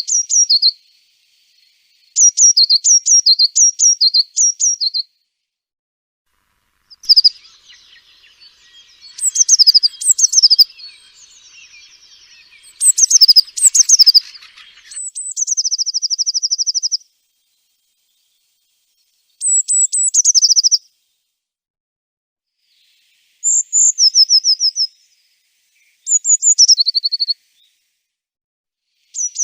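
Eurasian blue tit singing: about eight short, high phrases of quick descending notes and trills, separated by gaps of silence. Near the middle comes a longer stretch with harsher, buzzy chatter under the notes.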